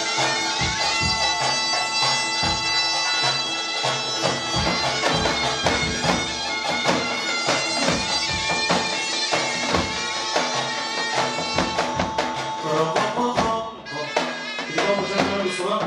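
Loud folk music: a reedy wind instrument plays a melody over a held drone, with a drum beating. The music thins and drops near the end.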